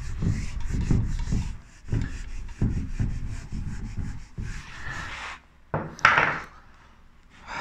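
Hand-writing strokes, a quick run of short scratching and rubbing strokes across a writing surface, with a short hiss about six seconds in.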